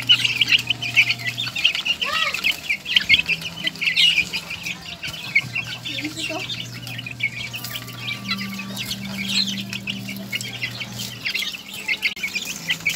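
A cage full of young chicks peeping and chirping continuously, many short high calls overlapping one another.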